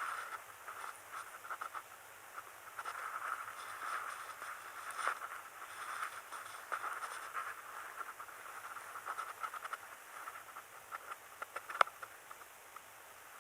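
Irregular crunching in snow, like footsteps, in uneven clusters, with one sharp snap or click near the end.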